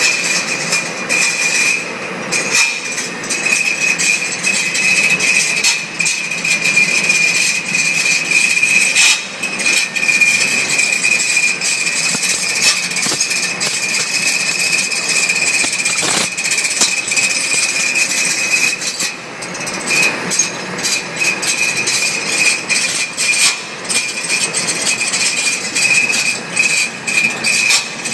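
Hair dryer running: a steady rush of blown air with a high-pitched motor whine, the level dipping briefly now and then.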